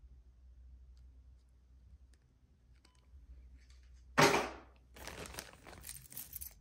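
Clear plastic bag crinkling as a hand rummages in it through a pile of metal costume jewelry. It begins about four seconds in with one loud rustle, then goes on as uneven crinkling and rustling.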